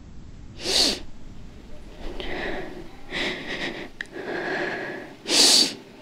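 A girl crying: two sharp, loud sniffs, about a second in and near the end, with softer sobbing between them.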